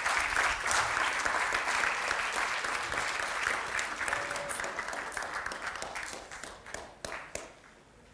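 Audience applauding, strong at first, then thinning out from about five seconds in and ending with a few scattered last claps.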